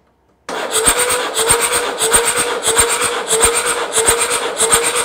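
Starter motor cranking a five-cylinder Mercedes turbo diesel during a compression test on cylinder three, which reads low. The starter whine holds a steady pitch, pulses about every two-thirds of a second, and starts about half a second in.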